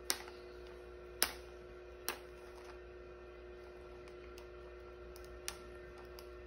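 Four light, sharp clicks from small plastic toy beans and their packaging being handled, over a faint steady hum.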